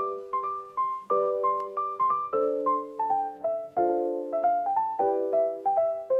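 Piano music: a gentle melody of single notes, about three a second, over held chords.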